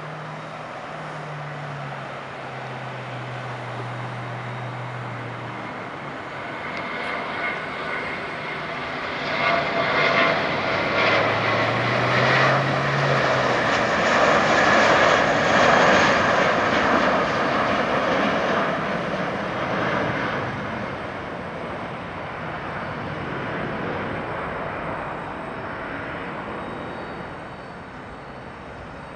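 McDonnell Douglas MD-90-30 airliner's two rear-mounted IAE V2500 turbofan engines at takeoff power. The jet noise builds as it speeds down the runway, is loudest around halfway through as it lifts off and passes, then fades as it climbs away.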